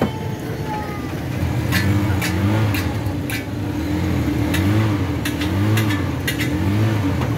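A motor engine in street traffic whose pitch rises and falls again and again, with a string of sharp taps on top.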